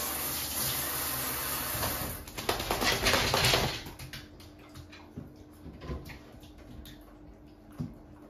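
Wet border collie shaking water out of its coat: a loud rattling, spraying burst of about a second and a half, starting a little after two seconds in. Before it a steady rush, typical of running shower water; after it only faint small clicks and drips.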